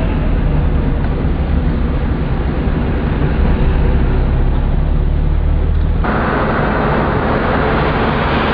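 Steady low engine and road rumble of a moving vehicle, heard from inside. About six seconds in it cuts abruptly to a brighter, hissing noise with less rumble.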